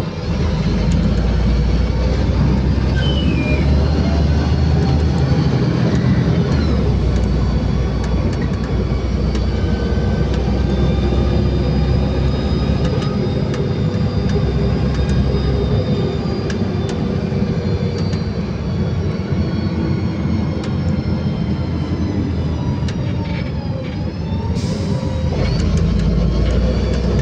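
A LiAZ 5292.65 city bus heard from inside while driving: a heavy low drivetrain rumble with road noise, and whining tones that slowly rise and fall with speed. The rumble eases briefly near the end, then swells again as the bus pulls on.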